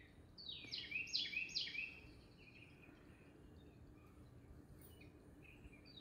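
Red-whiskered bulbul calling: a quick run of five or six high notes, each sliding downward, in the first two seconds, then a few fainter notes.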